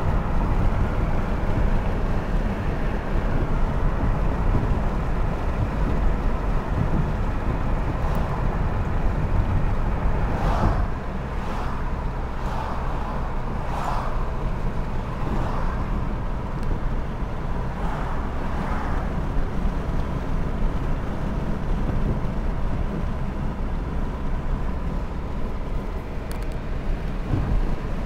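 Road noise inside a moving car: a steady low rumble of engine and tyres. There are a handful of short swishes about halfway through.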